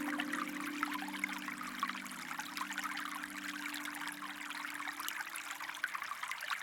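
Running water of a small stream, a steady splashing trickle, under a low held musical chord that fades away near the end.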